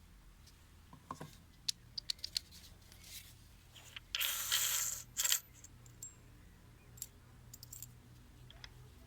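Unpacking and handling noises: scattered light clicks and clinks of hard parts being set down or fitted, with a brief rustle of packaging about four seconds in.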